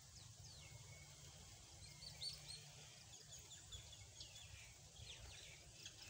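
Mynas chirping and calling faintly, a scatter of short chirps and downward-sliding whistles, over a low steady rumble.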